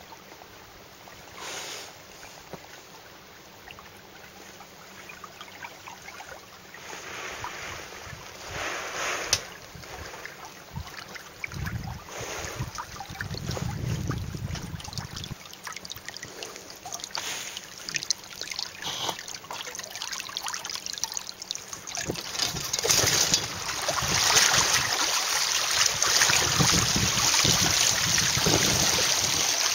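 Water splashing and rushing against a sailing catamaran's hulls, louder and fuller from about two-thirds of the way through.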